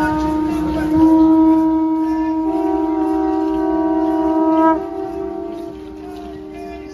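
Conch shell trumpet blown in one long, steady blast that swells about a second in and drops away just before five seconds in. A second, slightly higher horn note joins about halfway through and holds to the end.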